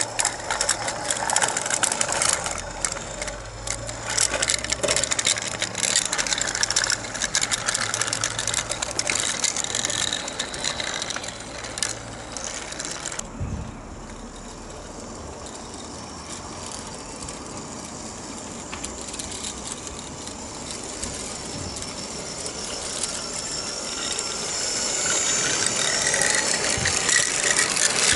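Small model locomotive's gearhead motor and helical gear drive running, with wheels clicking and rattling along 32mm gauge track as it passes close by. The sound drops suddenly about 13 seconds in, then grows louder again as the locomotive and its train of wooden wagons come near and rattle past.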